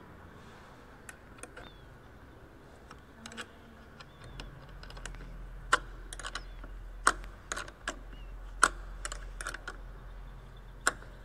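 Sharp, irregular metal clicks and clinks of a wrench on the battery's negative terminal clamp as the cable is reconnected. A few light ones come first, then louder ones from about the middle on.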